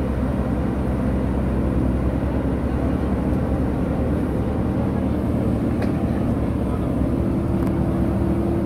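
JCB 3DX backhoe loader's diesel engine running steadily under load as the backhoe arm works the earth. A slightly higher tone in the engine's hum grows stronger near the end.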